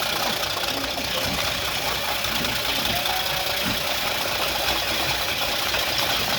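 Cassava shredding machine running steadily, a continuous loud mechanical noise with no pauses.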